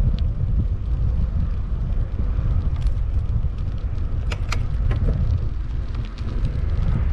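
Wind buffeting the microphone of a camera on a moving bicycle: a steady low rumble, with a few sharp clicks about four and a half seconds in.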